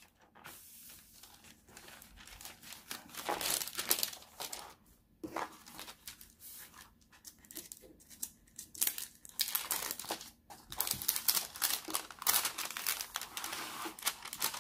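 Parchment paper crinkling and rustling in irregular bursts as hands smooth and press it flat over a canvas, busier in the last few seconds.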